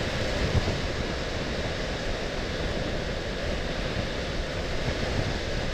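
Steady rush of wind and wet-road noise from a motorcycle ridden at speed in rain, with tyres running through standing water and spray.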